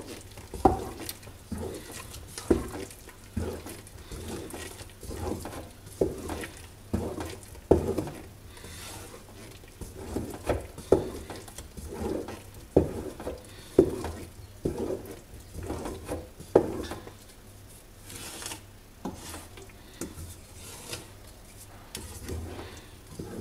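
Wooden spoon stirring and beating a thick sesame-and-hazelnut paste in an aluminium pot, with a regular stroke about once a second as it scrapes and knocks against the pot. The strokes pause briefly near the end.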